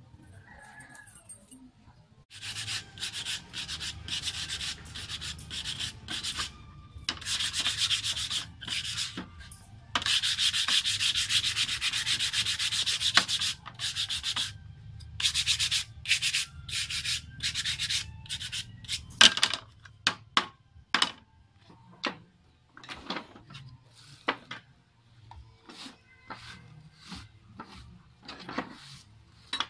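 Hand sanding of wood: quick back-and-forth scraping strokes in long runs broken by short pauses. After about twenty seconds the runs give way to shorter, scattered scrapes and light knocks.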